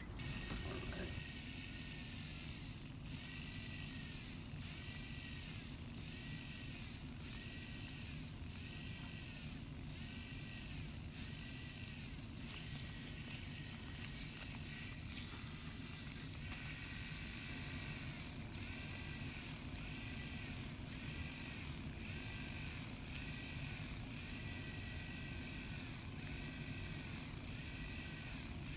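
Motorized FUE punch running in short repeated bursts, about once a second, over a steady low hum, as follicular-unit grafts are harvested from the donor area. It pauses for a few seconds about halfway.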